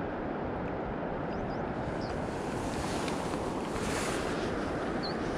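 Steady rushing noise of wind buffeting the microphone over flowing river water, with a few faint high chirps.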